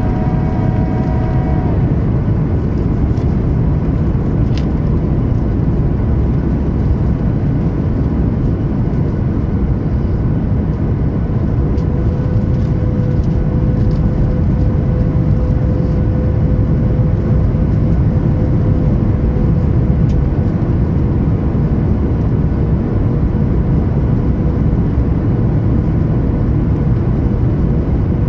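Steady cabin roar of a Boeing 737 MAX 8 in flight, the rush of airflow and its CFM LEAP-1B engines, with a steady tone coming in about twelve seconds in.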